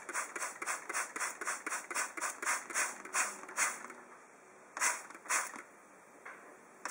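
Hand trigger spray bottle squirting water onto granular incubation substrate in a plastic tub, in quick squirts about three a second, then slowing to a few single squirts after about four seconds. The substrate is being moistened for incubating gecko eggs.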